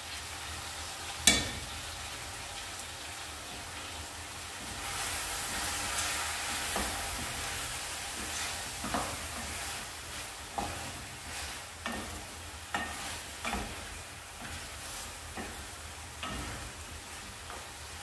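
Chicken bones and chopped vegetables frying in oil in a pan, sizzling, as a spoon stirs them and knocks and scrapes against the pan. A sharp knock about a second in, the sizzle swelling around five seconds in, then a run of shorter spoon knocks.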